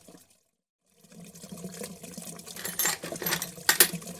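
Water running on and on from a broken toilet that won't stop flowing, as a sound effect with a steady low hum. It cuts out briefly just after the start and comes back, with a few sharp clicks and knocks in the second half.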